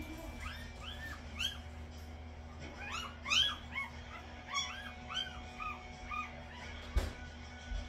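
Two-day-old Rottweiler puppies squealing and whimpering, many short, high, arched squeaks in quick succession, the loudest about three seconds in. A single sharp knock comes about seven seconds in.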